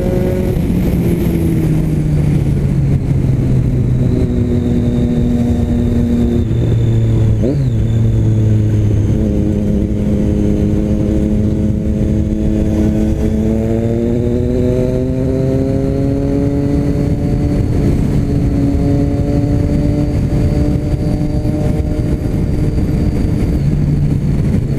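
Motorcycle running at road speed through a loud Jeskap aftermarket exhaust with its baffle insert still fitted. The engine note holds steady with a few steps in pitch, then rises and falls slowly with the throttle.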